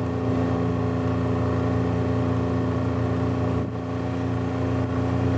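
ATV engine running at a steady low speed, a constant hum with a slight dip in level about three and a half seconds in.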